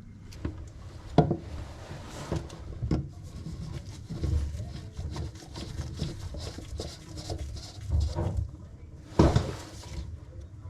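Hands working on bathroom sink plumbing: irregular knocks, clicks and scraping of parts and tools being handled, with the sharpest knocks about a second in and again near the end.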